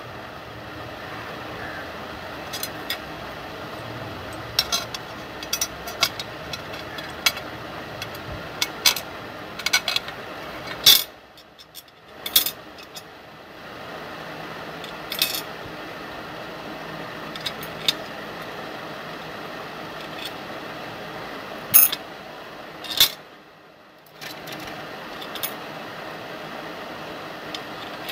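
Small metal clicks and clinks of ball bearings, bolts and nuts being handled and fitted onto a steel plate, scattered irregularly over a steady background noise that drops away twice, briefly.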